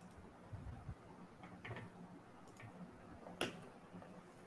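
A few faint clicks and light taps over quiet room tone, the sharpest click about three and a half seconds in.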